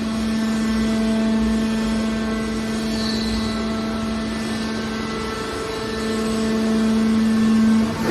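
Hydraulic can baler's electric motor and pump running with a steady hum, swelling a little near the end.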